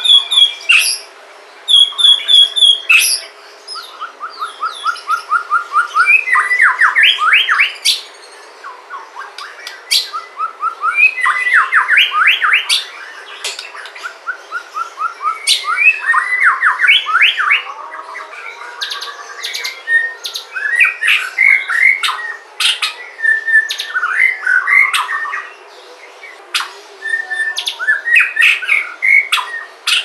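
White-rumped shama (Sumatran murai batu) singing: loud phrases of rapid repeated notes and fast trills mixed with sharp high notes, broken by short pauses.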